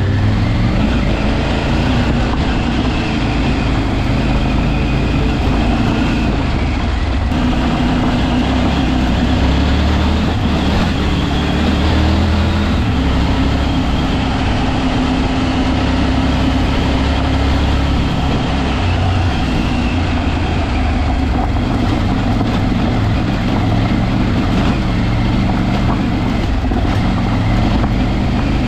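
A vehicle's engine running as it drives off-road, its pitch shifting up and down with the revs over a steady rumble of road noise.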